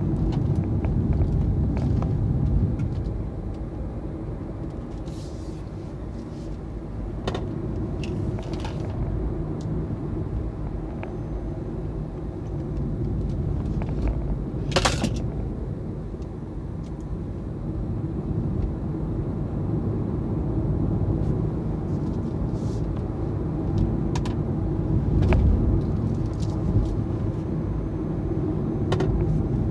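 Hyundai Ioniq Electric driving, heard from inside the cabin: a steady low rumble of road and tyre noise with no engine sound. A few sharp clicks or knocks cut through it, the loudest about halfway through.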